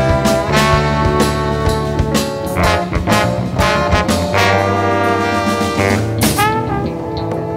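A live band playing jazzy music: sustained horn lines over an electric bass line and drums. A new, louder horn phrase comes in with a sliding attack about six seconds in.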